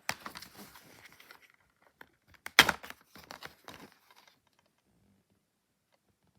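Plastic DVD case and packaging being handled: crinkling and rustling broken by several sharp clicks, the loudest a snap about two and a half seconds in.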